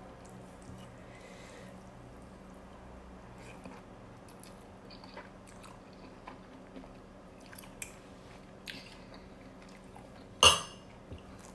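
Someone eating instant noodles: soft slurps and chewing with small scattered clicks of a metal spoon and chopsticks, then one sharp, loud clink of a utensil against the ceramic bowl about ten seconds in.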